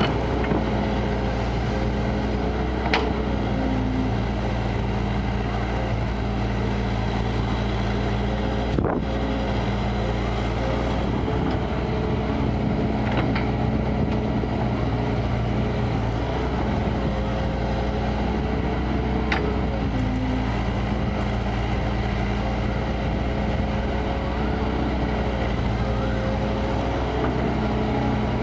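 Kobelco excavator's diesel engine running steadily as it digs, its note shifting every several seconds as the hydraulics take load, with a few sharp knocks.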